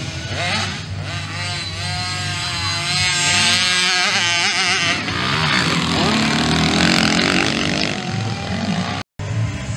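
Small two-stroke motocross bike engine revving up and down with the throttle, its pitch rising and falling over and over. The sound cuts out for an instant near the end.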